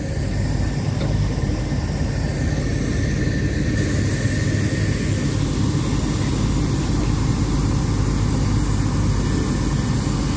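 Steady low engine rumble of a train standing at the platform, running at idle.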